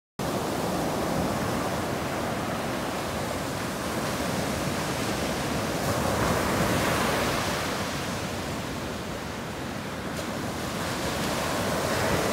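Ocean surf: waves breaking and washing up a sandy beach, a steady rushing that starts abruptly, grows louder about six seconds in and again near the end as waves come in.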